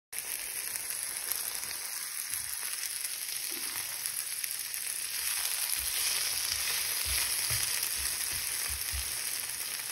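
Green beans sizzling in oil in a non-stick frying pan, a steady high hiss. From about six seconds in, a spatula stirs and scrapes the beans against the pan.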